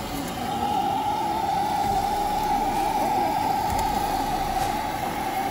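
Steady roar of a handheld gas torch searing chicken skewers on a griddle, holding an even pitch throughout.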